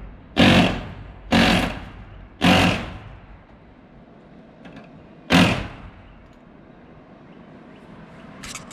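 Rivet gun popping rivets into the steel sheet of a school bus side. There are four sharp pops, each dying away quickly: three about a second apart, then one more about three seconds later, followed by a few light clicks near the end.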